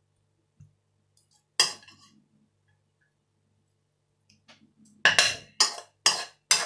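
Metal spoon knocking against the wok and the bowl while scooping fried rice: one sharp knock about a second and a half in, then a quick run of four or five knocks, about two a second, near the end.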